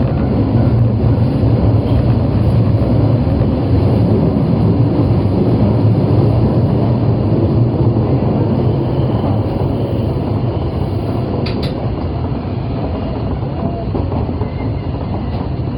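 An Osaka Metro 22 series train running along the line with a steady rumble. The rumble eases a little from about ten seconds in, and a brief double click comes shortly after.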